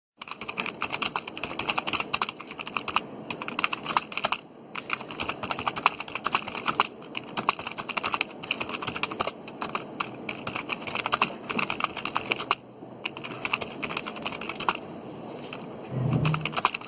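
Fast typing on a computer keyboard: runs of rapid key clicks with short pauses between them. Near the end comes a brief low pitched sound.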